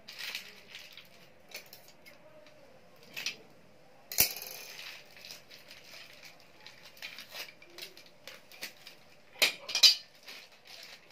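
Small metal screws and rivets clinking in a plastic bag as it is handled, with crinkling of the bag. There is a sharp knock about four seconds in and two louder clatters near the end.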